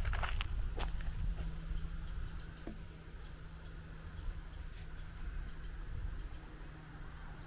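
Wind buffeting the microphone, with a few footsteps in the first second or so, then faint, short high-pitched chirps repeating through the rest.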